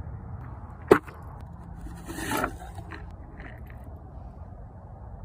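Handling sounds from a Lebel Modèle 1892 revolver: one sharp click about a second in, then a short scrape about two seconds in.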